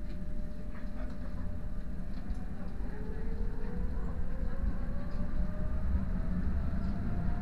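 Tram ride heard from inside the passenger car: a steady low rumble of the wheels on the rails, with an electric motor whine that rises slowly in pitch from about three seconds in as the tram picks up speed.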